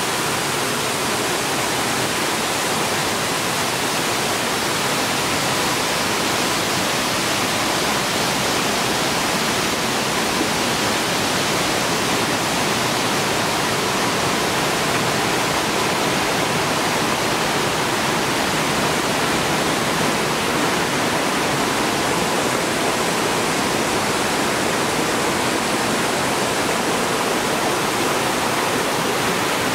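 Steady rushing of the Jacob Fork River cascading among boulders, a constant even hiss of falling water.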